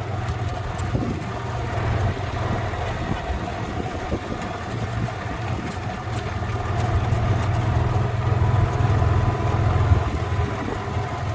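Golf cart running with a steady low hum while being ridden, getting somewhat louder about two-thirds of the way through.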